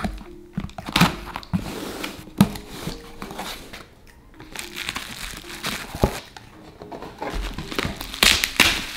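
A cardboard shipping box being opened by hand: rustling flaps and a few sharp knocks of handling, then plastic bubble wrap crinkling near the end. Soft instrumental music plays underneath.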